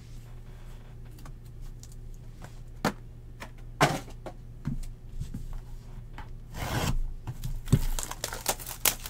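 Hands handling trading cards and a small cardboard card box on a desk: rubbing and sliding with scattered clicks, several sharp taps and knocks, and a longer scuffing swish just past the middle.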